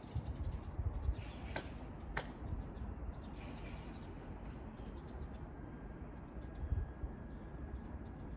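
Two sharp hand claps about half a second apart, the double clap of a worshipper praying at a Shinto shrine. Small birds chirp faintly over a steady low rumble.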